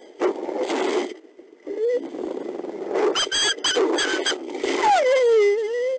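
Mexican gray wolf mother snarling at her pups in several harsh bursts, with short high yelps from the pups mixed in around the middle: warning snarls as she sets the rules in the den. Near the end a pup gives a long wavering whine that slides down in pitch.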